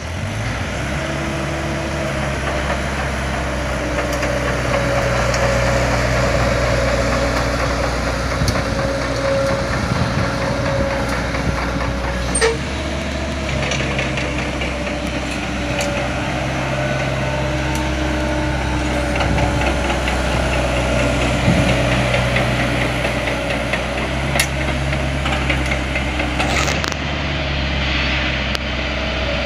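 Yanmar diesel engine of a 9-ton wheel-crawler excavator running steadily under load as the machine travels and works, with a steady whine above the engine note. A few sharp clanks come through, one near the middle and two near the end.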